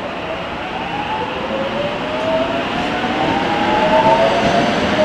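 Seoul subway electric commuter train pulling out of a station: the traction motors whine in several tones that rise steadily in pitch as it gathers speed, over a growing rumble of wheels on rail.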